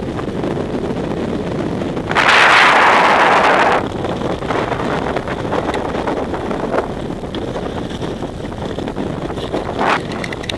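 Wind buffeting the microphone over the steady rush of river water around a raft, with a louder rushing gust that lasts nearly two seconds starting about two seconds in.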